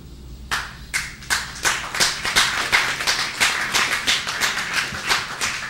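A small audience clapping. A few scattered claps start about half a second in, then thicken into steady applause.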